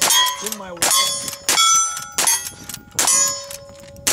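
Rifle shots in quick succession, about one every three quarters of a second, each followed by the ringing ding of a hit steel target.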